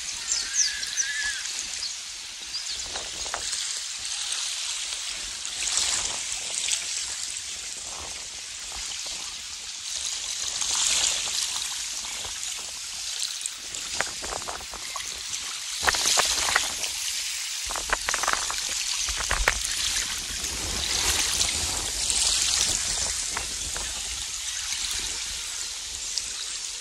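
Small waves lapping gently at the edge of a calm, sandy shore: a soft washing hiss that swells and fades every few seconds, with little trickles and splashes in the shallows.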